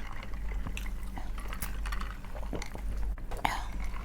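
Eating sounds at the table: irregular crisp clicks and crackles scattered throughout, with a brief brighter sound about three and a half seconds in.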